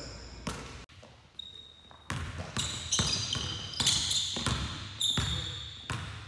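Basketball dribbled hard on a hardwood gym floor, a quick irregular run of bounces, with sneakers squeaking on the court as the player and defender cut and change direction.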